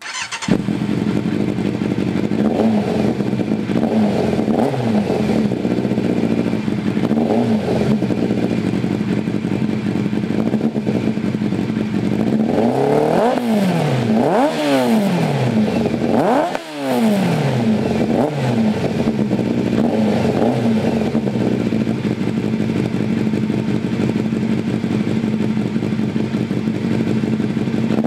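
1996 Yamaha FZR600R's inline-four engine running through an early-1990s Yoshimura R&D slip-on exhaust, idling steadily with a few quick throttle blips. There is a burst of sharper revs about halfway through, each falling back to idle.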